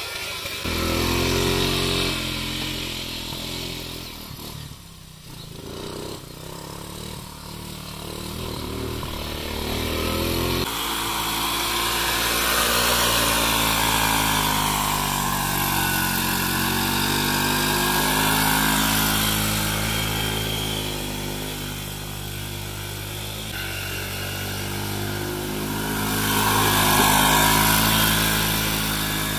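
Home-made buggy's 175cc Bajaj engine running as the buggy is driven, the revs rising and falling, loudest near the end.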